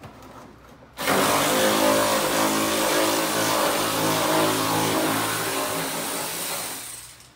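A loud, steady engine-like machine sound that starts abruptly about a second in and fades away near the end.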